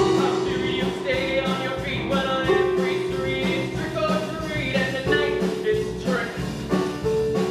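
Rock band music with a steady beat and sustained chords, playing under a stage musical number.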